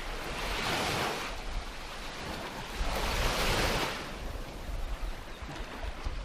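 Small waves washing up on a sandy beach, two swells of surf rising and fading about three seconds apart, over a low rumble of wind on the microphone.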